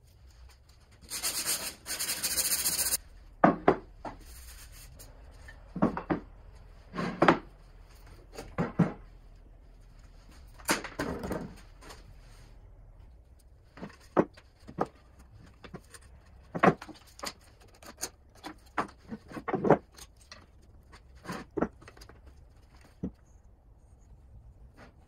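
Wooden workpieces and tools handled on a plywood workbench: a scattered series of knocks and clunks, with short rushes of noise about a second in and again near eleven seconds.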